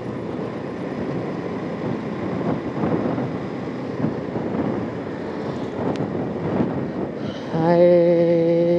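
Motorcycle running at riding speed, with wind rushing over the microphone. About three-quarters of the way through, a vehicle horn sounds: one steady, loud tone held past the end.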